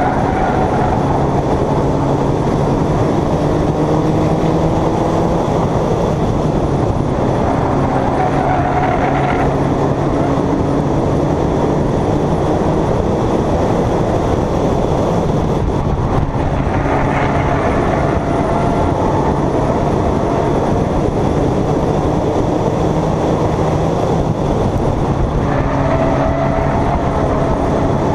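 Stock car race engine heard from on board, running hard under load throughout. Its pitch climbs and falls back in a repeating cycle about every eight to nine seconds, as the car accelerates and lifts lap after lap around the oval.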